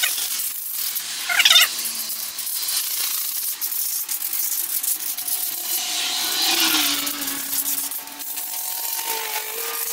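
Hand sanding of a brake caliper with 180-grit sandpaper: a steady scratchy rubbing of paper on the metal. A short high-pitched cry cuts in about a second and a half in.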